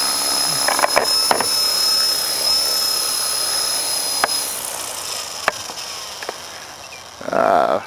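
Electric Trex 450 RC helicopter's motor and rotors whining at a steady high pitch, fading away after about four and a half seconds. A few sharp clicks, and a short loud burst near the end.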